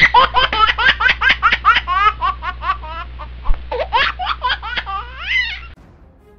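Mobile phone ringtone playing a recording of laughter: quick rising-and-falling 'ha-ha' syllables over a low hum. It cuts off suddenly about a second before the end as the call is answered.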